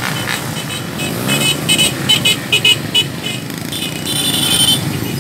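Many small motorcycle engines running at low speed in a convoy. Short horn beeps sound in quick succession from about a second in, then a longer horn blast near the end.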